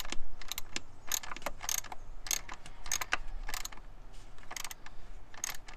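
Socket ratchet wrench clicking, a few irregular clicks a second, as it works a tight bolt on the EVAP purge valve mount.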